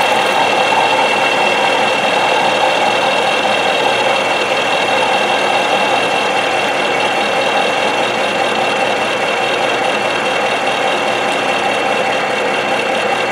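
Ajax milling machine running, its end mill cutting a slot through a metal tube. The cut makes a steady grinding sound with a constant high whine over it.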